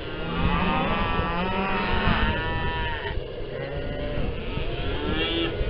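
Cattle bawling, several long drawn-out calls one after another.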